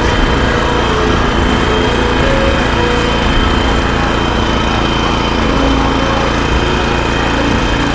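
BCS walk-behind tractor's small petrol engine running steadily at a constant speed.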